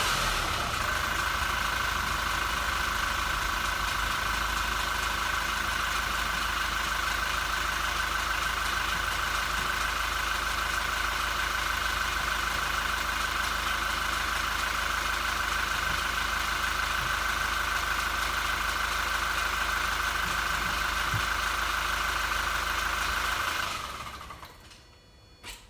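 A 2016 Toyota Innova's 2GD four-cylinder turbo diesel is idling steadily with an even diesel clatter, warming up after a morning cold start. It drops from a rev to idle in the first second, and the sound fades away near the end.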